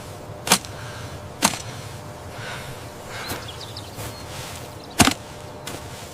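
Three sharp cracks, about half a second, a second and a half, and five seconds in, over a steady hiss, with a few fainter clicks between them.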